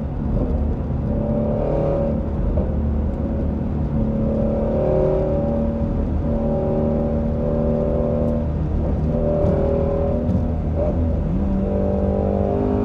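Shelby GT350R's 5.2-litre flat-plane-crank V8 running at a steady cruise, holding one pitch, then rising in pitch as it speeds up near the end.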